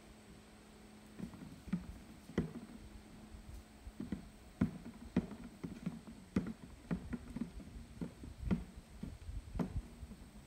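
Wild apples being dropped one at a time into a plastic bucket: irregular knocks, about one or two a second.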